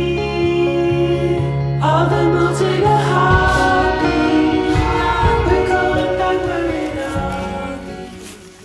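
Background music: a song with singing, fading out near the end.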